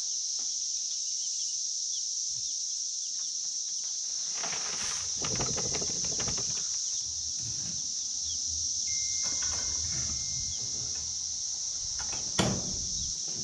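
Baby chicks peeping faintly while a cardboard chick box is handled and tipped out into pine shavings in a wooden brooder, with rustling and scraping. A sharp knock comes about twelve seconds in as the wire-mesh lid is set down. A steady high-pitched hiss runs underneath.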